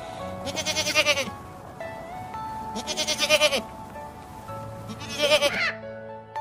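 Young goat bleating three times, each bleat under a second long and quavering, over background music with sustained notes.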